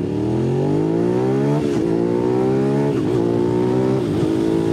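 2005 Suzuki SV650's V-twin engine, breathing through an aftermarket Beowulf exhaust can, accelerating up through the gears. The engine note rises, then drops at each of three upshifts: about a second and a half, three and four seconds in.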